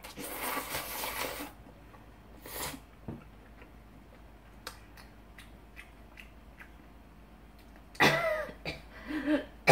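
A woman slurping udon noodles for about a second and a half, a second short slurp, then quiet chewing with small clicks. About eight seconds in she breaks into a fit of coughing and spluttering after choking on the mouthful.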